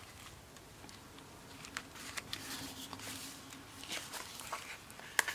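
Paper pages of a handmade journal being handled and turned: soft rustles and light taps, with one sharper click about five seconds in.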